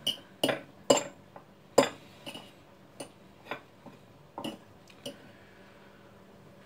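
Metal fork clinking against a bowl while stirring seasoning through cooked rice: a string of sharp, irregular clicks that thin out after about five seconds.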